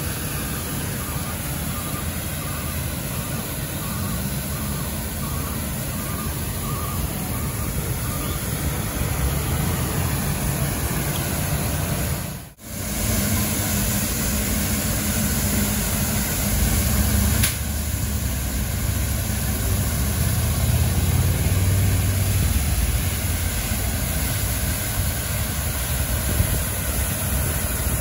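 Street sweeper truck working a milled road surface: the engine runs steadily under the rotating brooms. A back-up beeper sounds about twice a second for the first several seconds. The sound drops out briefly near the middle and the low rumble is louder afterward.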